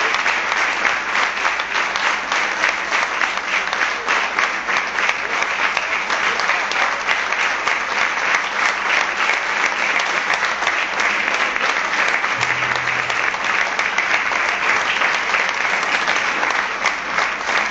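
Concert audience applauding steadily: a dense, even wash of many hands clapping.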